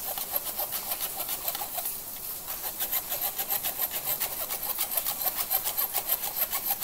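A spoon scraping flour and cocoa powder through a fine metal mesh sieve: a fast, even rasping, several strokes a second.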